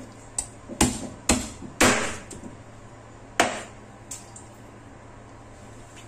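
Cleaver chopping through a chicken's wing joint on a cutting board: about six sharp chops in the first four seconds.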